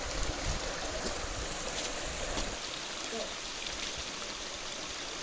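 Steady rush of flowing stream water, with a low rumble in the first couple of seconds.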